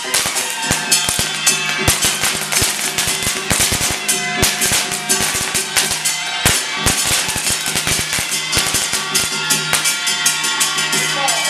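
A string of firecrackers going off in rapid, irregular cracks, over ritual music with a steady held tone.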